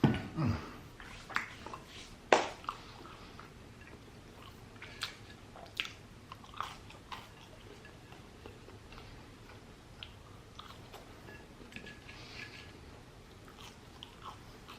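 Close-up biting and chewing of crunchy deep-fried food: a loud crunch right at the start and another about two seconds in, then softer crunching and mouth clicks.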